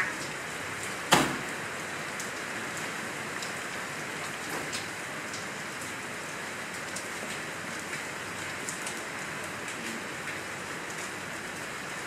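Steady rain falling, with scattered drop ticks and one sharp knock about a second in.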